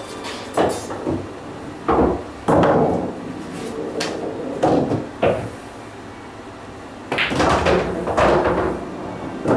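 About a dozen dull knocks and thumps, spread irregularly, with a quieter stretch in the middle.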